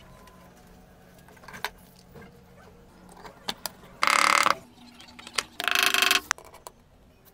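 Small hammer striking a steel sleeve into a cylindrical door-lock knob housing: two loud bouts of metallic clanging with ringing, about four and six seconds in, amid lighter clicks of metal lock parts being handled.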